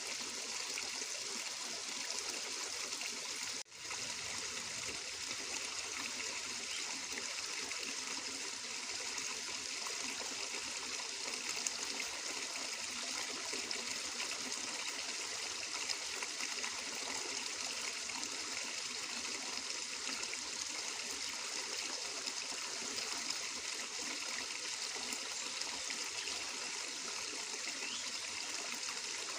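Flowing water trickling and splashing steadily, with the sound briefly cutting out for a split second about four seconds in.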